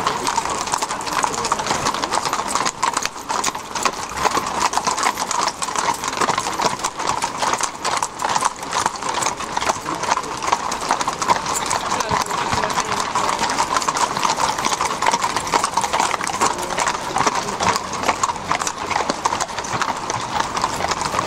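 Horse hooves clip-clopping on a hard surface, a continuous run of hoof strikes.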